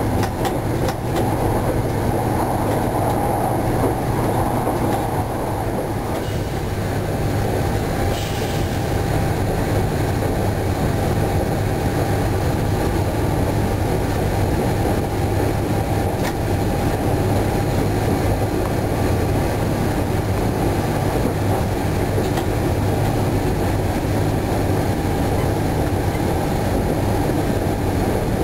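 Bombardier B 82500 AGC railcar in motion, heard from inside the driver's cab: a continuous running noise of wheels on rail over a steady low hum from the traction equipment.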